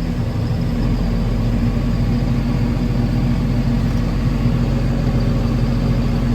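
Combine harvester running steadily under load while unloading soybeans on the go: a constant low engine and machinery drone with no change in pitch.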